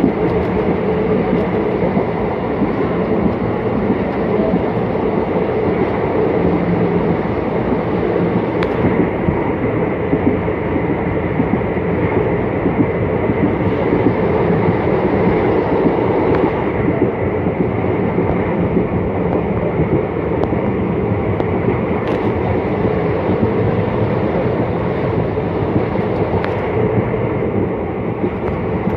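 Indian Railways passenger train running at speed, heard from inside the coach at an open window: a steady noise of wheels on the rails mixed with rushing air.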